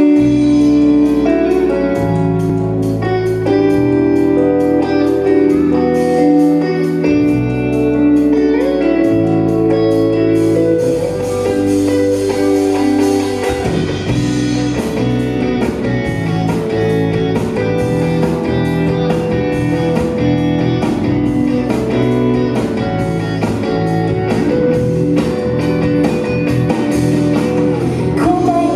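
Live band playing an instrumental passage: electric guitar over keyboard chords, bass and a drum kit keeping a steady beat.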